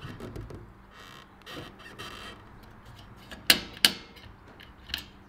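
Hands working the plastic housing of a cheap, loose-terminalled motor starter, giving sharp plastic clicks and snaps; the two loudest come about three and a half seconds in, close together. The housing is brittle, and a piece of it snaps off.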